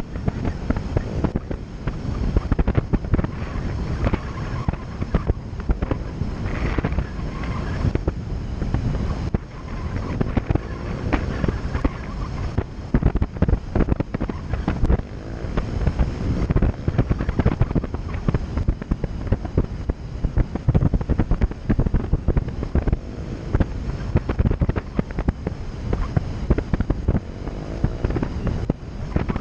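Wind buffeting the microphone of an action camera mounted outside a moving vehicle, a dense, continuous crackling rumble, with the vehicle's running noise underneath.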